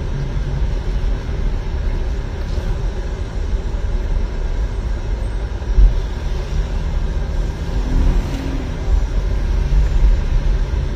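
Steady low rumble of a car heard from inside the cabin, the engine and road noise of a ride in the back seat, with a single thump about six seconds in.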